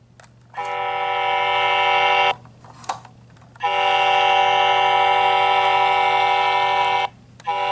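Toy roll-off dumpster truck's electronic horn sound, three steady honks: one of under two seconds, a long one of about three and a half seconds, and a short one near the end.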